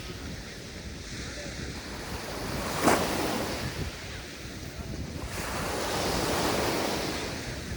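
Mediterranean sea waves breaking on the shore: a sharp splash of a breaking wave about three seconds in, then a longer wash of surf that swells and fades, with wind rumbling on the microphone.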